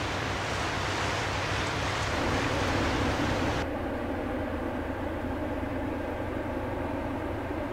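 Steady rushing of wind and water wash from a passing container ship. About three and a half seconds in it switches abruptly to a lower, steady drone with a faint hum, the engine of a large container ship under way.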